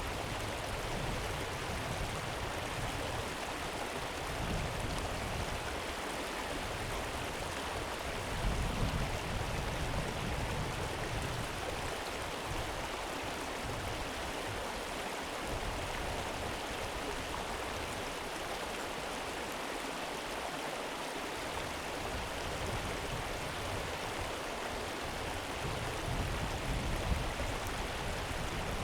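River water flowing: a steady, even rush of moving water, with an uneven low rumble underneath.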